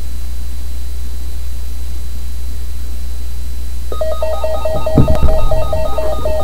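Steady low electrical hum from a radio's audio. About four seconds in, a repeating pattern of short electronic tones starts, and there is a thump about a second later.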